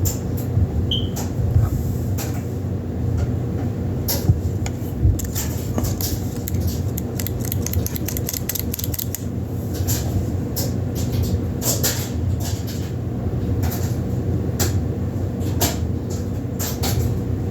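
Scattered light clicks and knocks of a plastic-and-metal air nailer being handled and turned over, over a steady low mechanical hum.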